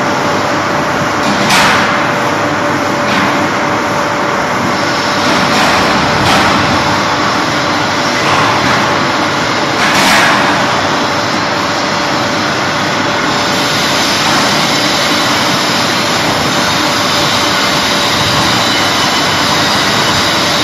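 Quartz-slab production line machinery running steadily, with a constant mid-pitched hum. A few short noisy bursts rise over it, the loudest about a second and a half in and about ten seconds in.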